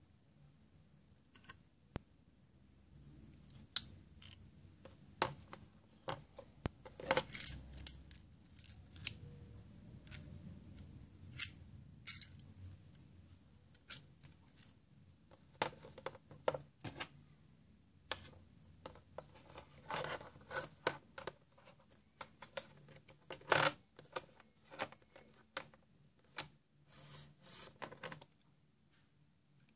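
Scattered sharp metallic clicks and clinks of two self-adjusting universal wrenches being handled: their hinged steel jaws working and the tools knocking on a hard surface, coming singly and in short clusters with quiet gaps between.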